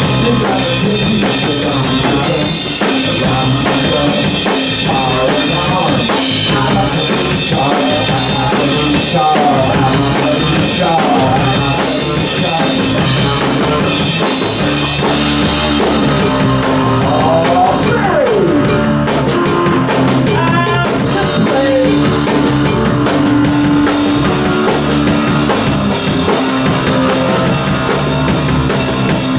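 A rock band playing, with the drum kit and bass drum prominent.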